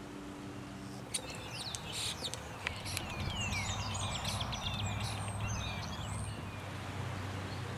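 A songbird singing a rapid, varied run of chirps and down-slurred whistles, starting about a second in and stopping near the end, over a low steady hum.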